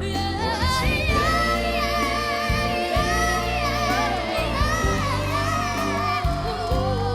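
Boys singing a soulful pop ballad with melismatic runs over backing music, played back from a TV performance.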